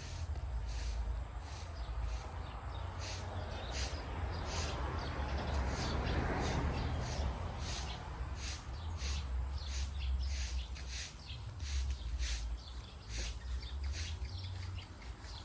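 Puppies eating, with a quick irregular run of chewing and smacking clicks, several a second, over a low rumble.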